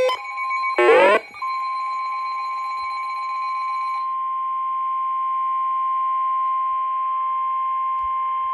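Weather-radio warning alarm tone, the NOAA Weather Radio 1050 Hz alert: one long steady single tone lasting about eight seconds, heard through a radio with a faint hiss beneath it. About a second in, a short sweeping burst comes just before the tone starts.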